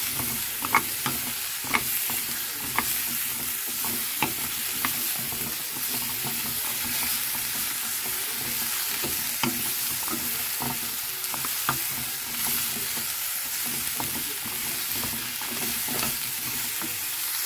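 Carrots sizzling in oil in a pan as they are stir-fried, a steady frying hiss with a utensil clicking against the pan now and then.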